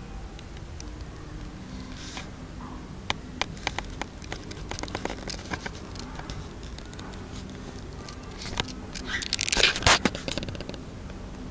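A pearl cockatiel moving about, giving a run of small clicks and scratches, then a louder burst of rustling and scraping near the end.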